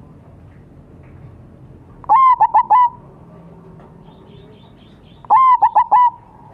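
Zebra dove (perkutut) calling twice, about two seconds in and again a little after five seconds: each call is a quick run of four or five clear cooing notes.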